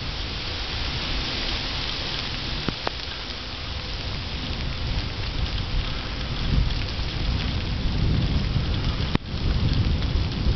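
Wind buffeting the microphone in low rumbles over a steady wet hiss, while moving along a rain-soaked paved road. The sound drops out briefly about nine seconds in.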